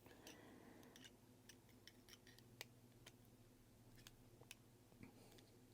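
Near silence with faint, irregular small clicks and ticks: watch parts being handled and fitted as the module goes into the G-Shock case.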